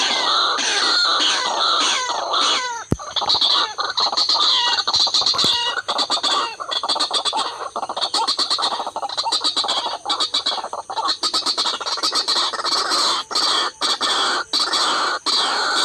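White-breasted waterhen calling, a fast, repeated series of harsh notes that fall in pitch, with a sharp click about three seconds in.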